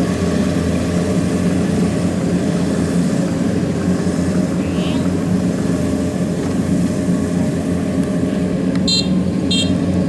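Steady diesel drone of a tracked combine harvester running. About three short, high electronic beeps sound near the end.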